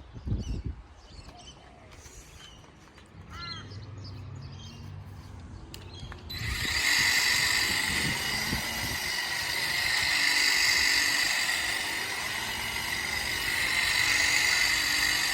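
Ego battery-powered telescopic hedge trimmer switching on about six seconds in and running steadily with a high motor-and-blade whine, its level swelling and easing as it cuts. A bird chirps a few times before it starts.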